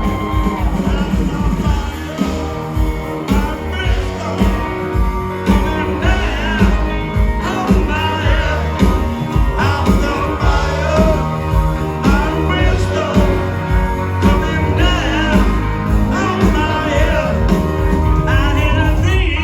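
Live band playing an up-tempo rock and roll song with a steady, driving beat.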